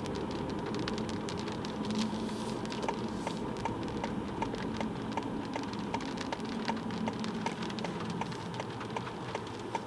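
Raindrops starting to hit the car's windshield and roof: scattered sharp taps over the steady hum of the car. From about three seconds in, a regular ticking runs underneath, about two to three ticks a second.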